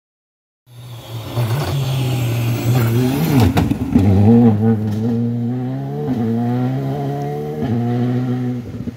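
Rally car engine revving hard, its note rising and falling as the car slides through a gravel corner, with tyres spraying gravel and a sharp crack about three and a half seconds in. The sound starts just under a second in and eases off near the end.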